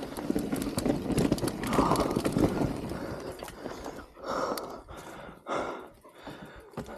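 Mountain bike rolling over a dirt trail, tyres and frame rattling, fading as it slows, then the rider's two heavy breaths after the hard descent.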